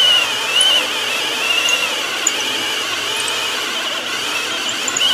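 Cordless drill spinning a large paddle bit through a wooden 2x4 at high speed, the bit cutting with a steady, wavering high squeal. The drill is running faster than it should for a hole this size, the speed that burns up and dulls paddle bits.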